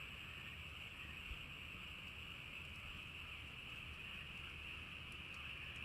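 Campfire burning: a faint steady hiss with a few small, sparse crackles.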